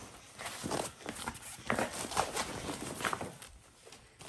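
Handling noise of a nylon carry bag being pulled open and its plastic-wrapped contents touched: irregular rustles and soft knocks.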